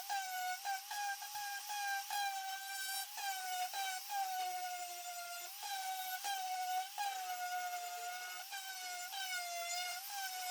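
Electric orbital sander running with a steady high whine, its pitch and level sagging briefly again and again as it is pressed against the wood to sand off paper pattern and adhesive residue.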